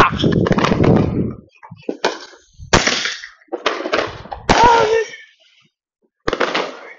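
Consumer firework going off from the ground: a loud launch at the start, then a string of sharp bangs over the next few seconds as shots are fired into the air, and one more loud burst near the end.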